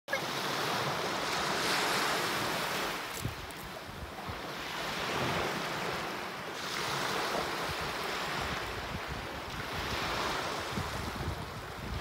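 Small waves breaking and washing up onto a sandy beach, the surf swelling and easing every few seconds.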